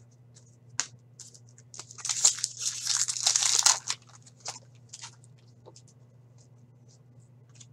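Foil hockey-card pack wrapper crinkling in the hands for about two seconds, with light clicks of trading cards being shuffled before and after. A faint steady hum runs underneath.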